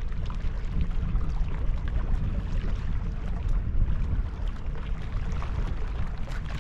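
Wind buffeting the microphone: a steady, gusting low rumble with no clear tone in it.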